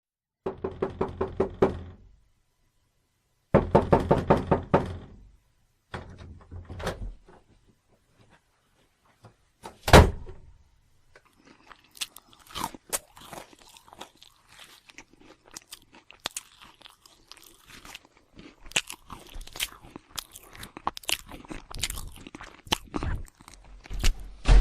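Staged horror sound effects: three short bursts of rapid clicking pulses, a single loud thud about ten seconds in, then a long run of scattered crunches and knocks.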